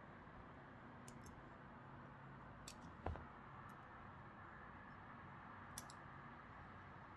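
Near-silent room tone broken by a few faint clicks of steel surgical instruments (forceps and needle holder) being handled and set down on a silicone suture practice pad, with one soft thump about three seconds in.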